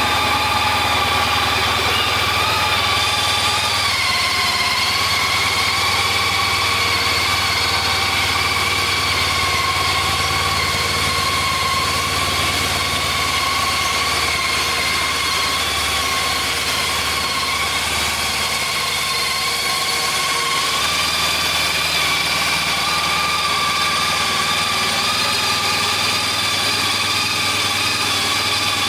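Honda ST1300's 1261 cc V4 engine idling steadily, its pitch settling slightly lower about four seconds in.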